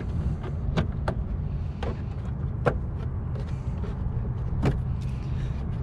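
A handful of sharp, spaced-out plastic clicks and snaps as push pins are pried out of a UTV's plastic trim panel, over a steady low hum.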